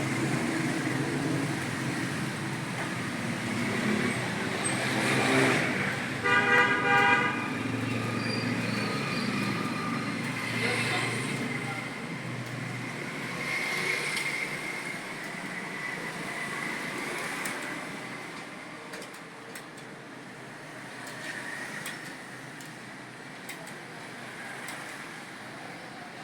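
Road traffic noise with a vehicle horn honking in a rapid run of short toots about six seconds in.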